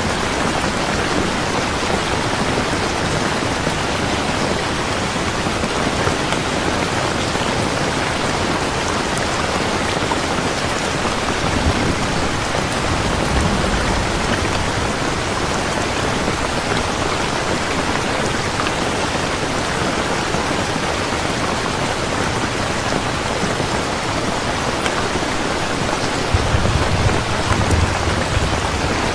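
Heavy rain pouring steadily, with low thunder rumbles about twelve seconds in and again near the end.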